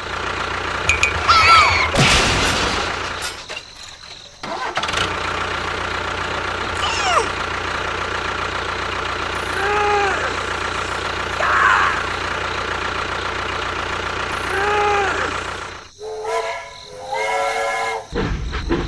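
Engine running steadily, with a few short chirping tones over it. It drops out briefly about four seconds in, and again near the end, where a held horn-like tone sounds.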